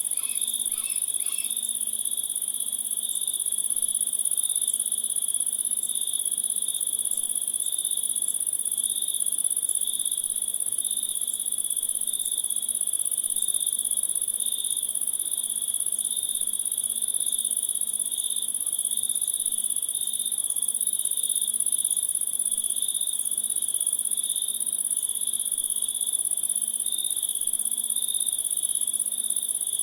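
Crickets and other insects trilling in a dense night chorus: one very high, continuous trill over a lower one that pulses steadily, with a few short chirps in the first second or so.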